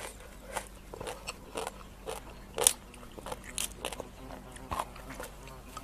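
Raw rice-paddy crabs crunching and cracking as their shells are broken apart and eaten: irregular crisp cracks, the loudest snap about two and a half seconds in.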